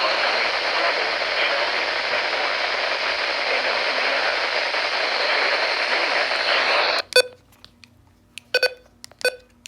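Weather radio hissing with static, which cuts off suddenly about seven seconds in; a few short electronic beeps follow in the quiet.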